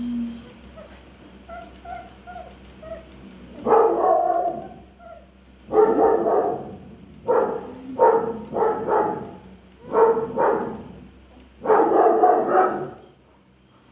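Doberman puppy barking in about seven short, loud bouts, starting about four seconds in, after a few faint high whines.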